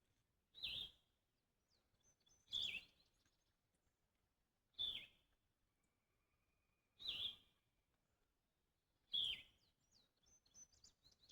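Five short, high bleating calls about two seconds apart, each dropping slightly in pitch, like a goat screaming. The man takes them for a female turtle calling while laying her eggs.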